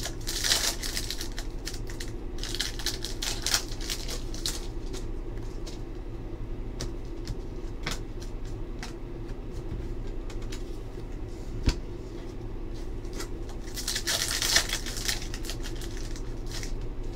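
Foil trading-card pack wrappers crinkling and tearing open by hand in bursts, near the start, a few seconds in and again near the end, with the cards clicking against each other as they are flipped through. A steady low hum runs underneath.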